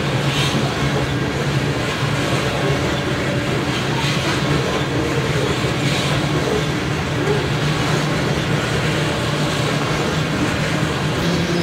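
Loaded coal cars of a freight train rolling past: a steady rumble of steel wheels on the rails with a low hum and a few faint clicks.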